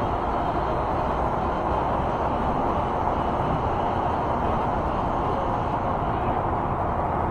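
Steady rushing noise of an e-bike ride: tyres on pavement and air rushing past, with highway traffic alongside. Even and unbroken, with no clear motor whine or knocks.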